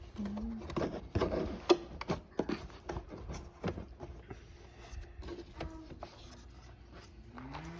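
Clicks, knocks and rubbing from hands working the air filter housing of a Duramax pickup's engine.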